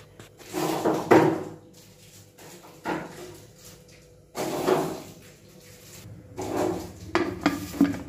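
Aluminium pressure cooker and steel vessels being handled: metal scraping and clanking in four bouts, with several sharp knocks near the end as the lid goes on.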